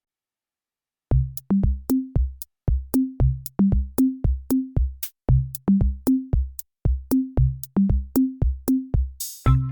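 Background electronic music with a drum-machine beat of pitched low drum hits, starting after about a second of silence; near the end a short swish leads into a fuller, busier section.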